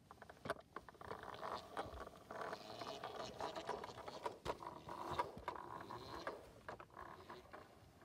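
Close handling noise: scraping and rustling of objects moved against each other right by the microphone, with scattered sharp clicks and rattles. It is strongest from about one second to about seven seconds in.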